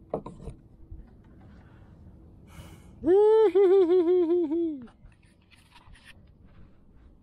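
A man's wordless vocal call, a long wavering hum or 'ooo' lasting about two seconds, starting about three seconds in. It rises at the start, warbles several times and falls away at the end. A few light knocks of handling come right at the start.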